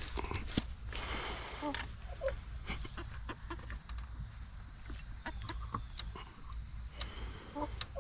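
Insects trilling outdoors in one steady high note, with scattered light clicks and a few short, soft clucks from backyard hens.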